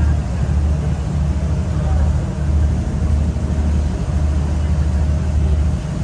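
Steady low rumble of a passenger ferry's engine running underway.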